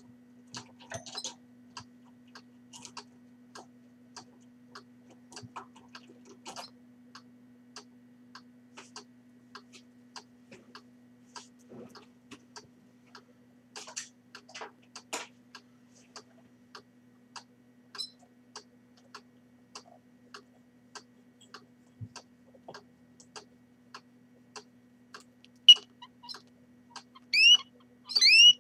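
Soft irregular clicks and ticks over a faint steady hum, then near the end a few loud, short rising chirps from a Fife canary at the nest.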